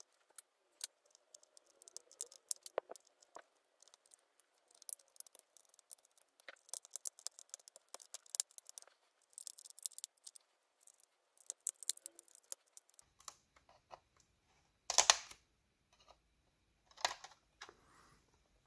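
Faint scattered clicks and scrapes of steel tweezers picking at the thin metal shield foil over a tablet's circuit board, with two louder rustles near the end as the shield is lifted.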